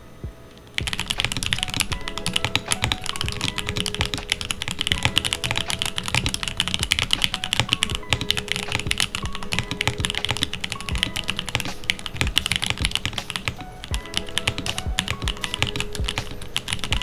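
Typing on a custom mechanical keyboard fitted with GMK Mecha keycaps: a fast, continuous run of key clacks that starts about a second in, over background music.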